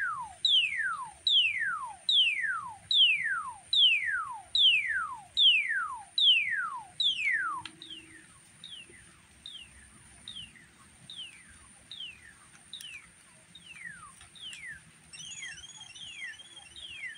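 Electronic synthesizer sounding a repeated zap, a high pitch falling quickly, about once every 0.8 s, over a thin steady high whine. About halfway through the zaps become much quieter and carry on, and near the end a wobbling warble joins in.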